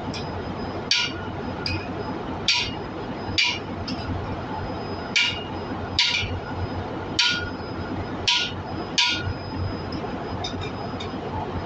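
Hammer blows on a steel driver, setting a new exhaust valve seat into a diesel cylinder head: about eight sharp metallic strikes at uneven intervals, each with a short ring. A few light clinks near the end.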